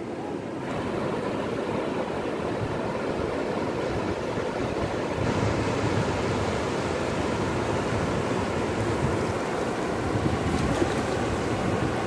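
Surf washing in over a flat sandy beach: a steady rushing of waves and foam. It changes character slightly about half a second in and again around five seconds in.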